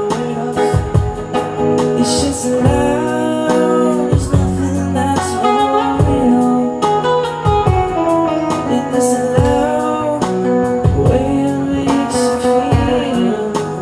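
Live band playing a reggae song, with guitar, bass and drums and a voice singing over them.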